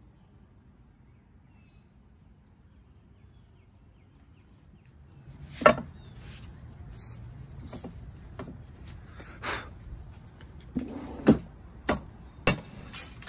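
Scattered knocks and clunks from handling a cast-iron bench vise on a wooden workbench, the loudest about six seconds in, after a few quiet seconds. A steady high-pitched whine runs under them from about five seconds in.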